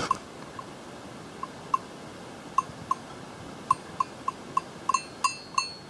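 A small animal bell, worn by a goat, clinking irregularly as the animal moves, with the clinks coming quicker in the second half, over a faint steady hiss.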